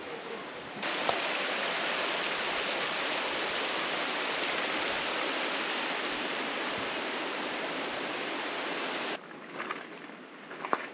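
Mountain creek rushing with a steady, even hiss. It starts abruptly about a second in and cuts off suddenly near the end, leaving a few light knocks.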